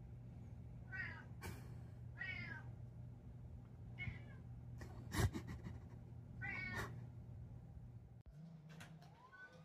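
Domestic cat meowing at a closed door to have it opened: four short meows spread over several seconds. A sharp knock about five seconds in, over a steady low hum that stops near the end.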